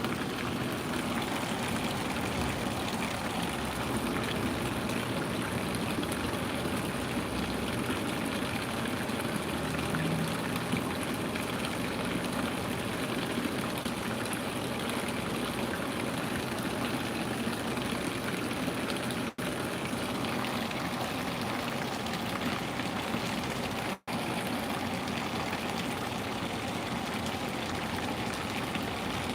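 Steady rush of running water, an even wash of noise with two very brief dropouts, about two-thirds of the way in and again near the end.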